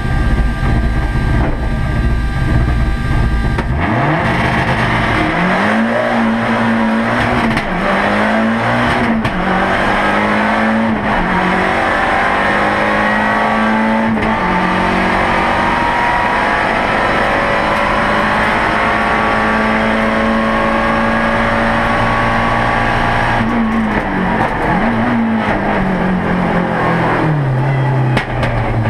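Turbocharged Lancia Delta rally car engine, heard from inside the cabin. It holds steady revs, then launches about four seconds in and climbs through several quick upshifts. It then runs at high, steady revs for a long stretch and drops through downshifts near the end.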